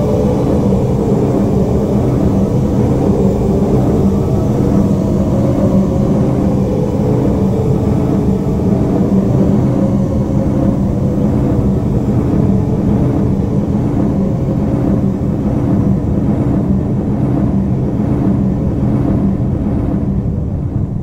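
Horror sound-design ambience: a steady low droning rumble with several held tones, in the style of a sci-fi spaceship drone. It eases off slightly near the end.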